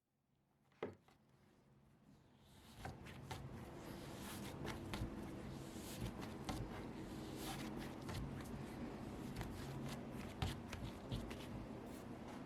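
Hands working soft bread dough on a work surface, with rubbing and rustling and many small taps and clicks. There is a single click about a second in, and the handling sounds start in earnest about two seconds in.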